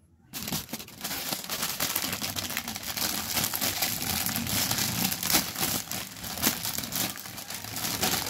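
A thin clear plastic bag crinkling as it is pulled open and the plastic model kit runners inside are drawn out. The crackling starts about half a second in.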